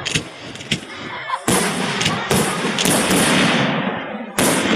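Aerial fireworks shells bursting in quick succession: about half a dozen sharp bangs, each with a long echoing tail, heard through a phone's heavily compressed audio.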